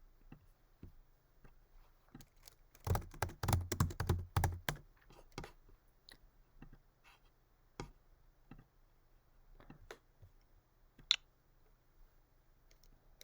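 Typing on a computer keyboard: a quick run of keystrokes about three seconds in, then scattered single clicks, with one sharper click near the end.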